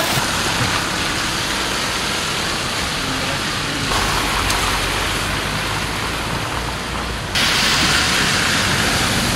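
Steady wash of heavy rain and floodwater, with cars driving through deep water on the road and their tyres splashing. The sound changes abruptly about four seconds in and again near the end, where it grows louder.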